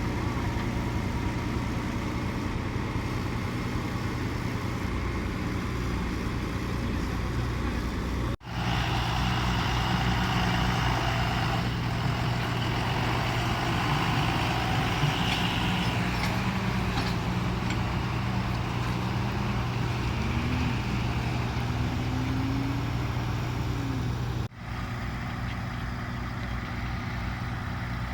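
Diesel engines of a combine harvester and tractors running steadily at work. The sound changes abruptly about eight seconds in and again near the end, and an engine's pitch briefly rises and falls in between.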